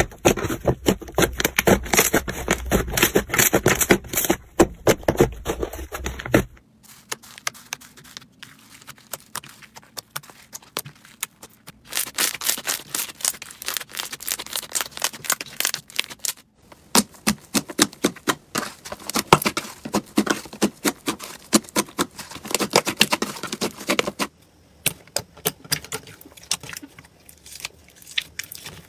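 Hands kneading and squeezing slime: a fast, dense run of sticky pops, clicks and crackles. The sound changes suddenly about six and a half seconds in and again about twenty-four seconds in, as different slimes are worked.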